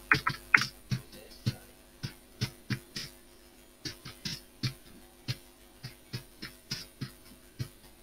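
Computer keyboard keys clicking as text is typed: irregular keystrokes a few a second, with a short pause a little past the middle. A faint steady electrical hum sits underneath.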